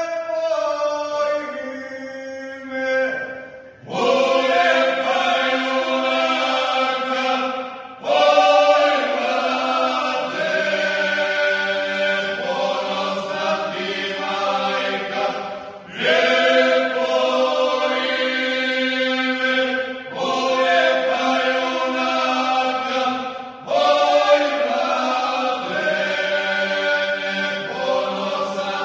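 A men's folk singing group singing a traditional village song together in close harmony. They sing in phrases about four seconds long, each starting together and ending on a long held chord, with a short break for breath between phrases.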